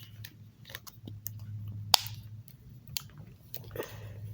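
Small scattered clicks and scrapes of plastic and metal as a keychain is fitted onto a Simple Dimple fidget toy, with one sharp click about two seconds in.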